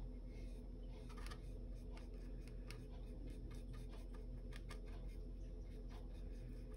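Faint, scratchy strokes of a small paintbrush working acrylic paint across a wooden painting panel, a run of small irregular brushing ticks over a low steady hum.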